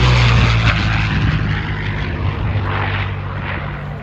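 Curtiss P-40 Warhawk's V-12 piston engine and propeller making a low, close pass. The drone is loudest near the start, then drops in pitch and fades as the fighter goes by.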